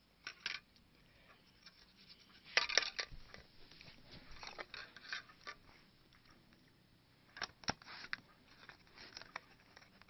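Scattered clicks and light rattles of a blue plastic hard-drive mounting bracket being handled against an IDE hard drive, in several short clusters.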